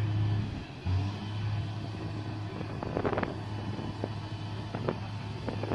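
Crane's engine running with a steady low hum that dips briefly just under a second in, with a few sharp knocks and clanks from about three seconds in.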